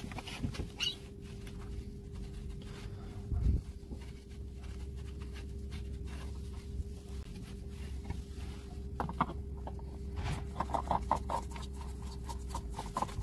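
Small clicks, scrapes and handling noises of a spin-on oil filter being fitted and screwed on by hand, with a knock about three and a half seconds in and a run of short high squeaks near the end, over a steady faint hum.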